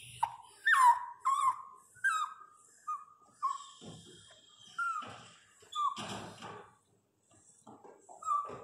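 Miniature pinscher in labour whimpering: a string of short, high whines, each dropping in pitch, coming quickly for the first few seconds and then thinning out, with one more near the end. A brief rustle comes about six seconds in.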